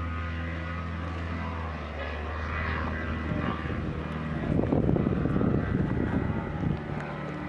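An engine running steadily with a low hum, joined about halfway through by a louder, rough rushing noise that fades near the end.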